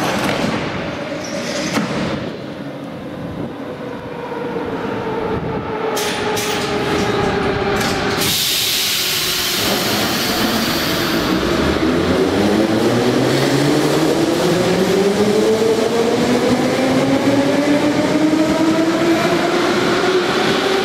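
Moscow metro train pulling away from a station platform. About eight seconds in there is a sharp hiss of air for a few seconds. Then the traction motors set up a whine of several tones that climbs steadily in pitch as the train gathers speed.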